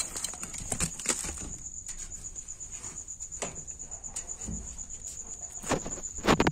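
A cricket chirping steadily, a fast even pulse of one high note, with scattered clicks and knocks of things being handled and a louder knock near the end.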